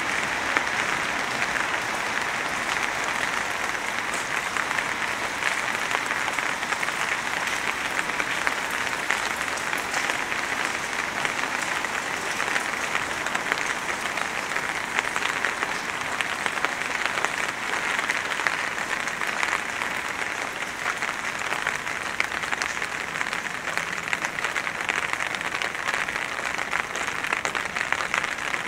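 Steady rain falling, a dense even hiss of countless small drop hits.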